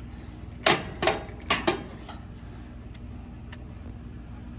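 Mechanical refrigerator defrost timer being turned by hand into defrost: a quick run of four or five sharp clicks in the first two seconds, then a single faint tick, over a low steady hum.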